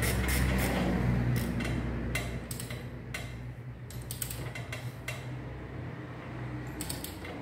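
Ratchet wrench clicking in short runs as a socket winds bolts tight, over a steady low hum.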